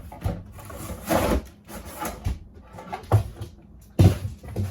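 Handling noise as a chainsaw is taken out of its cardboard box: a rustle about a second in and several knocks and thumps, the loudest near the end.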